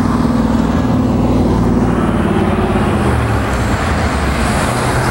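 2012 Harley-Davidson Ultra Classic's 103 cubic-inch V-twin idling steadily through Rinehart Racing mufflers.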